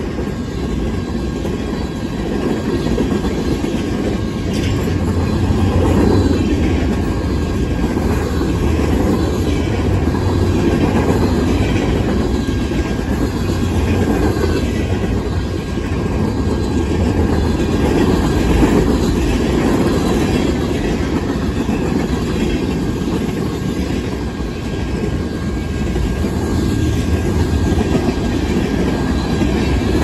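Freight train cars rolling past close by: a steady heavy rumble of wheels on rail with a repeating clickety-clack of the wheels over rail joints, and a thin steady high tone running over it.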